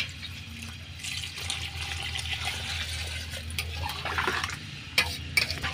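Water pouring into a metal cooking pot of pork curry, followed by a ladle stirring the watery curry, with a few sharp knocks of the ladle against the pot near the end.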